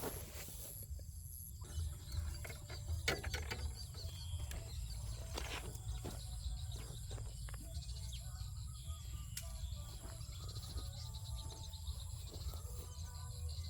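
Rural outdoor ambience: steady high insect trilling and rapid chirping with scattered bird calls over a low rumble, broken by a few sharp clicks, the loudest about three seconds in.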